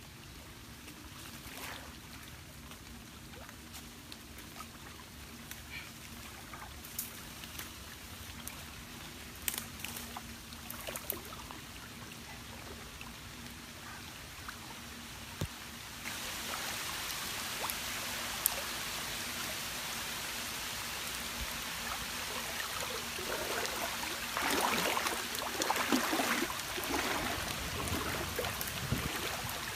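River water sloshing and splashing around a person wading waist-deep, with small scattered splashes and drips, then louder clusters of splashing near the end.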